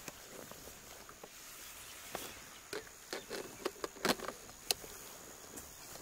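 African elephants grazing: irregular sharp snaps and rustles of grass being torn up, bunched between about two and five seconds in, over a steady high insect drone.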